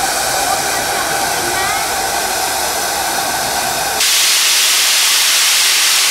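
Steam locomotive venting steam from its cab roof: a loud hiss that starts suddenly about four seconds in, over a steady lower background hiss.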